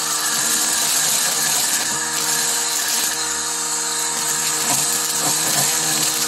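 DeWalt 20 V brushless battery string trimmer running at a steady speed, its motor whining evenly while the line cuts through dense weeds.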